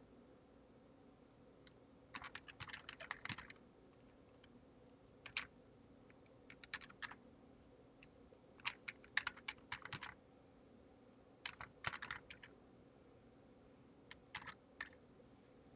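Typing on a computer keyboard: short bursts of rapid keystrokes separated by pauses, as a line of code is typed.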